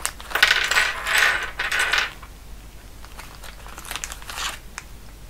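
Clear plastic zip-lock bag of electronics kit parts crinkling in the hands for about two seconds, then a few fainter rustles near the end.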